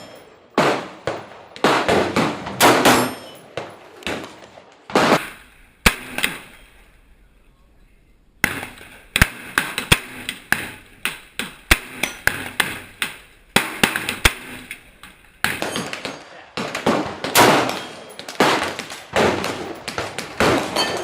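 AR-15 rifle fired shot after shot, roughly one to two shots a second, each sharp crack followed by a short echo. Near the middle there is a break of about two seconds.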